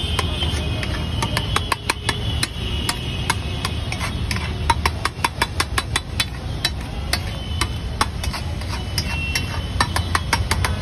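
Metal spatula clattering and scraping against a large flat metal tawa as ragda (pea gravy) is stirred and mashed: quick, irregular clinks several times a second, over a steady low rumble.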